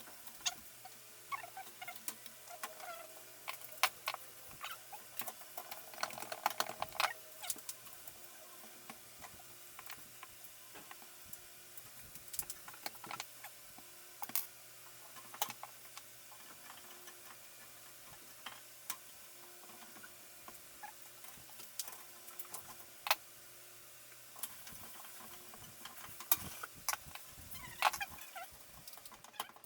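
Scattered light clicks and taps of small hardware being handled and fitted while moving a PC's parts into a new case, with denser bursts of clicking about six seconds in and near the end.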